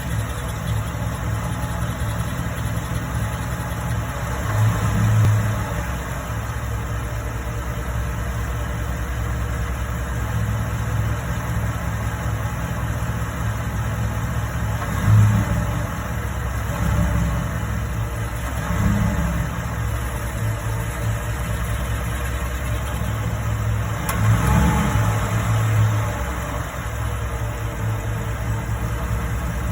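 2013 5.0-litre V8 engine idling steadily, its sound swelling briefly several times; it is being recorded for a noise that the owner wants to show.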